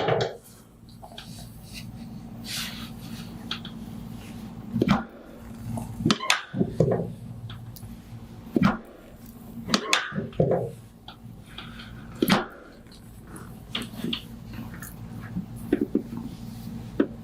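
Chiropractic drop table being used for adjustments: a handful of sharp clacks at uneven intervals over a steady low hum.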